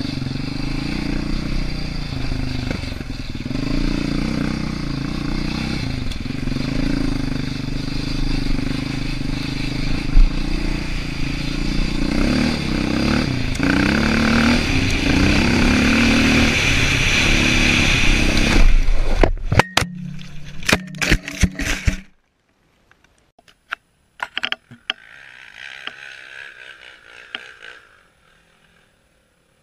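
ATV engine running under load, heard from the rider's helmet camera. About nineteen seconds in it breaks off into a short run of sharp knocks and clatter, the sound of the ride ending in a crash. After that it goes almost silent, with faint sounds near the end.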